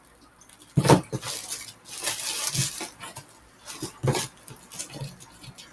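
Packaging rustling and crinkling as hands search through a shipping box, with sharper knocks about a second in and again about four seconds in.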